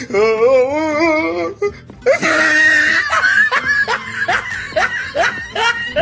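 Laughing sound effects played back to back: first a long, wavering sing-song laugh, then after a short break a run of short rising 'ha' laughs, about three a second.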